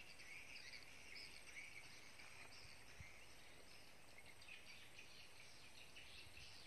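Near silence: faint chirping of insects and birds, with a soft bump about three seconds in.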